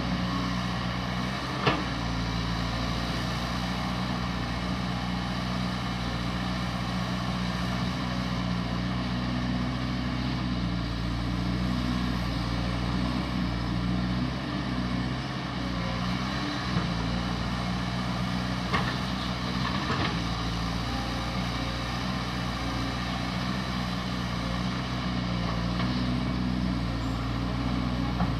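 Caterpillar 320D hydraulic excavator's six-cylinder diesel engine running steadily under digging load, with a few short sharp knocks from the working machine, the first about two seconds in and more around two-thirds of the way through.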